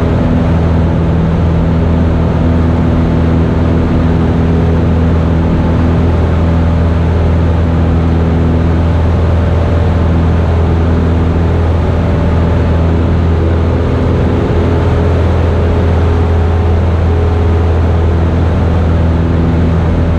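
Single-engine Cessna's piston engine and propeller at climb power, a loud steady low drone heard from inside the cockpit.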